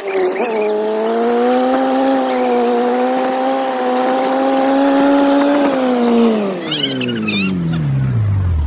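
4x4 dune vehicle's engine running at steady high revs as it drives over sand. About two-thirds of the way in, the revs fall steadily as it slows, with a few brief high squeals near the end.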